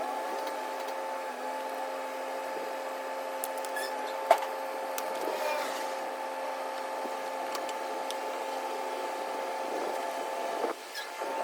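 A small motor running at a steady pitch, with one sharp click about four seconds in; it cuts off near the end.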